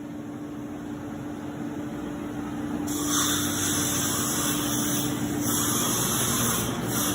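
Ooya REM 5M bridge-type CNC vertical machining center running with a steady hum. About three seconds in, a loud hiss starts, switching on and off in blocks of one to two seconds.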